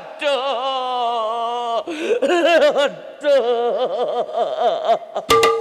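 A performer's voice wailing and sobbing in lament, the pitch wavering and breaking into sobbing phrases. Near the end a few sharp strikes and a steady held note start up.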